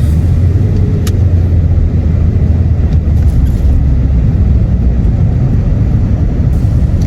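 Steady low rumble of a car driving, heard from inside the cabin, with a brief click about a second in.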